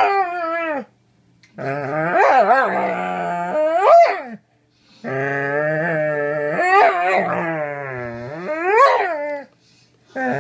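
A red Doberman howling in long, wavering moans that swoop up and down in pitch, in several drawn-out bouts with short breaks between them. It is a sulking protest at having her stuffed toy taken away.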